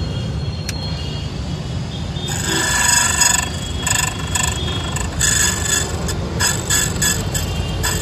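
Key-duplicating machine running, its rotary cutter biting into a clamped key blank in a string of short, high-pitched whining passes starting about two seconds in, over the motor's steady low hum.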